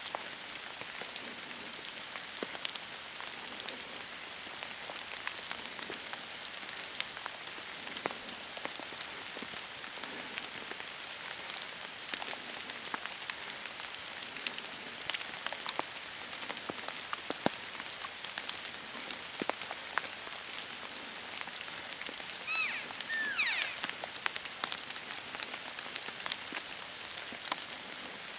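Steady rain pattering on a surface, with many fine drop ticks over a hiss. A few short chirps from a small bird come through near the end.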